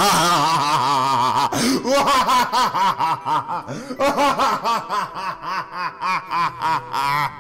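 A man's long, exaggerated cackling laugh into a microphone. It opens with a drawn-out wavering note and breaks into short rhythmic 'ha' pulses, about three a second.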